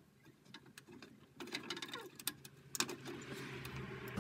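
Light clicks and small rustles of hands handling a boiler's plastic-mounted circuit board and pushing its wire connector clips home. There is a soft hiss of handling in the second half and a faint low hum underneath.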